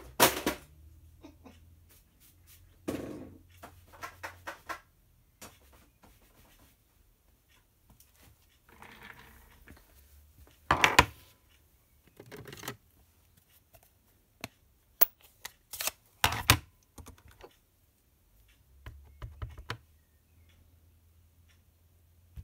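Irregular clicks, taps and knocks of clear-mounted rubber stamps on an acrylic block being cleaned, inked on an ink pad and handled on a desk. There is a brief rubbing sound around the middle.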